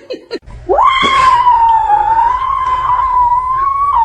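A cat giving one long, loud yowl that holds a nearly steady pitch for about four seconds.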